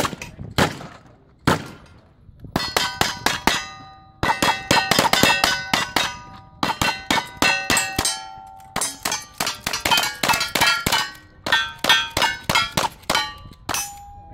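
Rapid rifle fire from two shooters at steel targets: sharp shots come a few per second, each hit followed by a metallic clang and the ring of the steel plate. A few isolated shots come first, then a dense stretch of shooting and ringing that ends with one plate ringing on alone.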